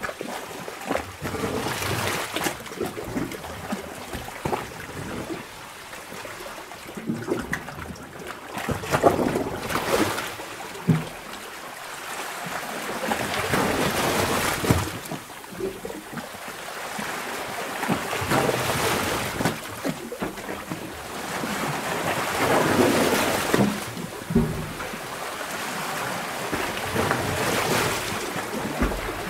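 Sea water surging and sloshing inside a sea cave, the waves swelling and draining away every four to five seconds, with sharp splashes and slaps of water among them.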